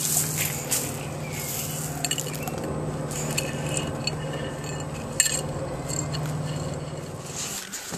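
Gravel stones and a terracotta tile clinking and scraping as a toddler handles them: a string of small irregular clicks, with a sharper clink about five seconds in. A steady low hum runs underneath and stops shortly before the end.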